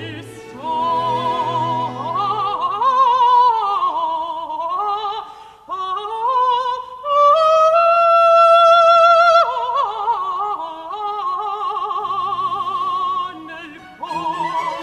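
Countertenor singing a florid passage of a baroque opera aria, with wide vibrato, quick runs and a long held high note in the middle. The low orchestral accompaniment falls away after about two and a half seconds, leaving the voice almost alone, and the orchestra comes back near the end.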